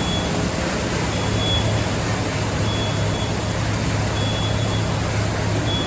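Concrete mixer truck's diesel engine running steadily while its reversing alarm beeps, about one beep every second and a half.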